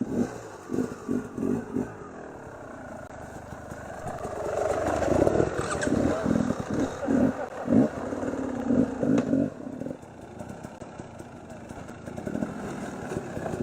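Two-stroke enduro motorcycle engine revving in short, repeated throttle bursts. It grows louder from about four seconds in and drops away after about ten seconds.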